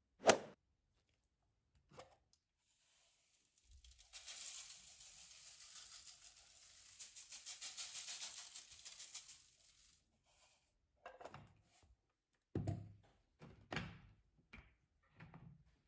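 Citric acid crystals sprinkled from a plastic container onto a rusty steel saw blade in an aluminium-foil tray, making a fine pattering hiss for several seconds in the middle. A sharp knock comes just after the start, and a few short thuds and knocks near the end.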